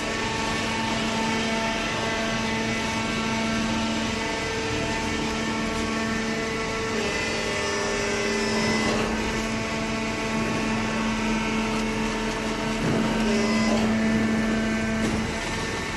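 Hydraulic baler's electric motor and oil pump running with a steady hum, with a couple of brief knocks about nine and thirteen seconds in.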